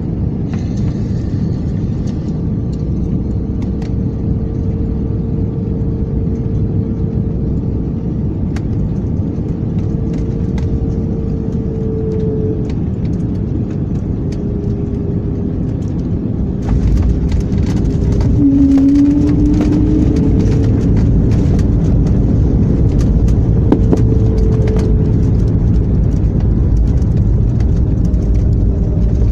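Jet airliner cabin noise during landing: a steady rumble of airflow and engines on the approach. About two-thirds of the way in the noise suddenly gets much louder, with a short rising engine tone, as the jet touches down and slows on the runway with its spoilers raised.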